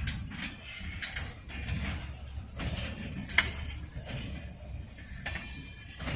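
Rail tank cars being shifted in a yard: irregular metallic creaks, squeaks and clanks from the cars' wheels and couplers over a low rumble, with one sharp clank about three and a half seconds in.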